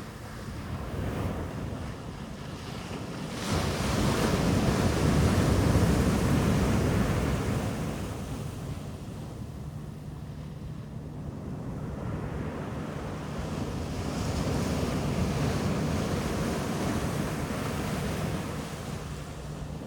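Ocean waves breaking and washing up on a beach: a large wave swells up about three seconds in and dies away, then a softer one builds and fades near the end.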